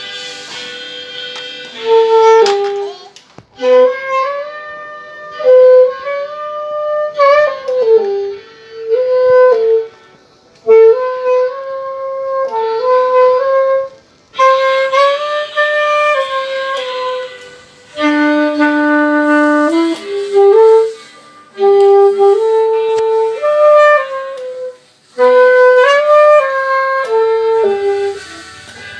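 Saxophone playing a melody, one note at a time, in short phrases with brief breaths between them.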